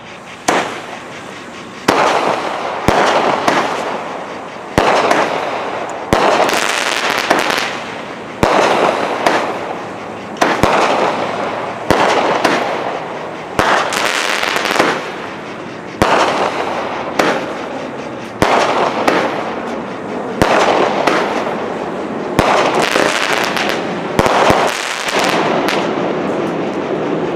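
A 16-shot, 200-gram consumer firework cake (TNT Fireworks X Bomb) firing shot after shot, about one every second and a half. Each shot is a sharp bang followed by a fading hiss, and the shots keep up steadily until the cake runs out near the end.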